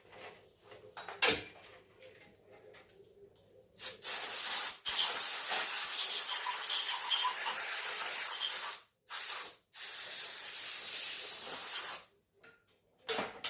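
Pressurised spray hissing in four blasts, one of them about four seconds long, as the removed chainsaw bar and chain are blown or sprayed clean.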